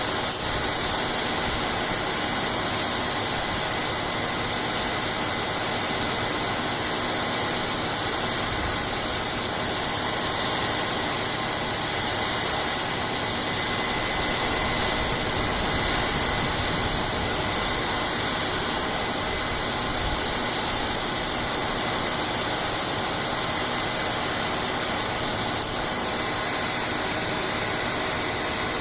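Combine harvester running steadily at work in the corn, a constant loud machine noise with a steady high whine over it.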